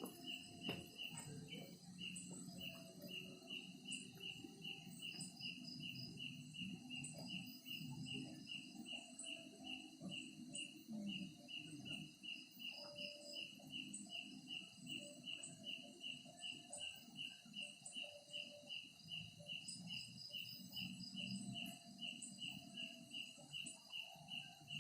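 Night insects, crickets, chirping in a steady, evenly spaced rhythm of a little over two high chirps a second, with fainter insect calls higher up over a low background hum.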